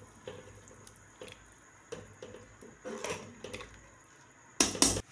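Pot of meat stock and rice boiling, with faint scattered bubble pops and small clicks, and a brief louder knock near the end.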